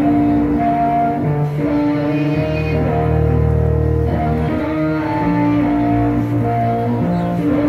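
Music for a dance routine: slow, long held notes in what sound like bowed strings over a deep, sustained bass.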